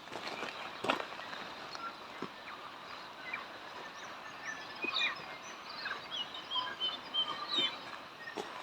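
Forest birds calling in short, high chirps over a faint steady background hiss, busiest in the second half, with a few scattered soft clicks.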